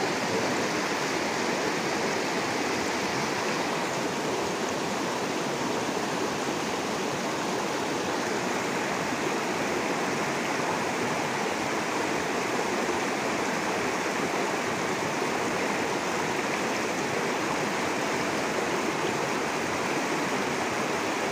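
Fast-flowing river water rushing and churning white over rocks, a steady unbroken rush.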